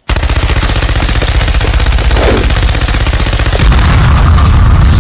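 Sustained burst of rapid automatic machine-gun fire, a cartoon sound effect with the shots coming in a fast, even rattle. About three and a half seconds in, a deep explosion rumble joins the firing.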